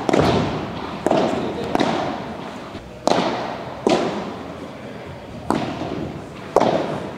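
A padel rally: the ball is struck by rackets and bounces, giving about seven sharp pops at uneven intervals of roughly a second, each ringing briefly in a reverberant hall.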